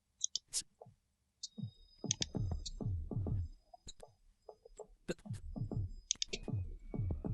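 A few sharp clicks, then electronic background music with a deep, repeating beat that falls in pitch and thin high synth tones over it.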